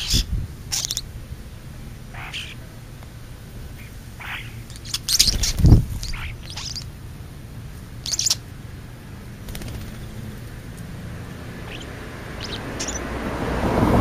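Scattered short chirps and calls from birds feeding on the ground, European starlings among them. There is a deep thump about six seconds in, and a rush of noise swells near the end.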